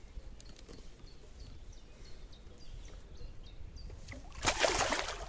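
A hooked carp splashing and thrashing at the water's surface beside the landing net, a loud burst of splashing for just under a second near the end.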